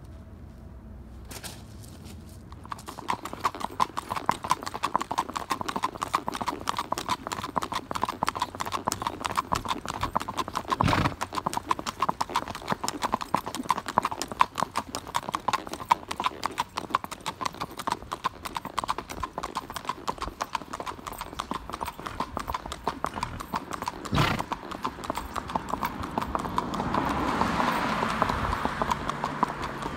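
A gaited horse's hooves clip-clopping in a quick, even rhythm. The hoofbeats begin a couple of seconds in and grow louder near the end.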